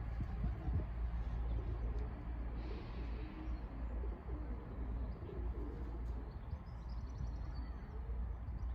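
Pigeons cooing softly over a steady low rumble.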